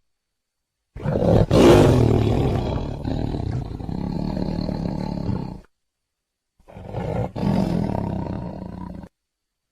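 Tiger roaring twice: a long roar of about four and a half seconds, loudest near its start, then a shorter roar of about two and a half seconds, with dead silence before and between them.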